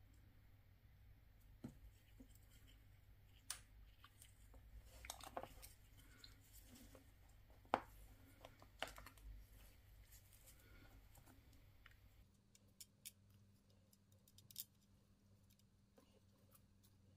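Faint, scattered clicks and light scraping of small plastic Mercedes-Benz key fob parts being handled and fitted, with the sharpest click about eight seconds in.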